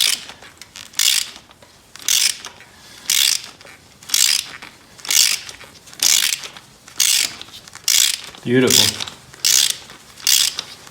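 Ratchet wrench clicking in short runs about once a second, one run per back-stroke, as a nut welded onto a broken exhaust manifold stud backs the stud out of the cylinder head.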